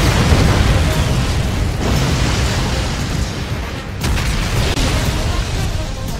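Movie explosion sound effects: a big blast at the start that trails off into a long, deep rumble, then a second blast about four seconds in.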